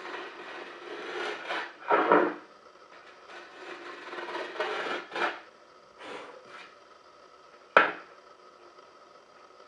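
Wood being shaved or rasped by hand in several long strokes, the loudest about two seconds in, likely chamfering the edges of a wooden box; a single sharp knock comes near the end.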